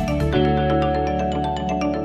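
Background music: a tune of quick struck, ringing notes over steady low tones.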